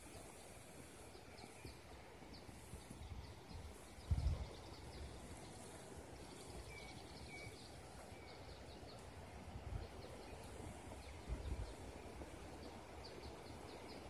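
Quiet forest ambience: faint, high bird calls scattered throughout, with a few low wind thumps on the microphone, the strongest about four seconds in.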